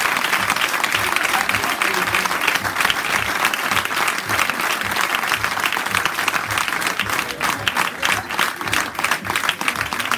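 A small group applauding, the clapping thinning out into more separate claps near the end.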